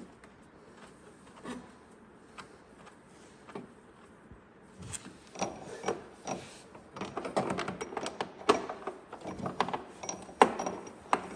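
Metallic clicks and clanks of tools and snowmobile chain-case parts being handled, sparse at first and much busier from about five seconds in.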